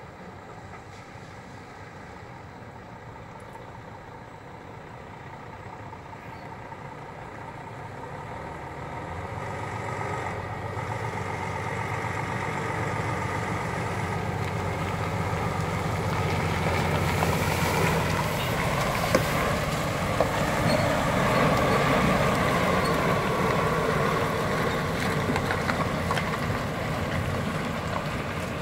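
Semi-truck's diesel engine pulling a loaded flatbed trailer, growing steadily louder as the truck approaches and drives past at low speed. It is loudest about two-thirds of the way through and eases off slightly near the end.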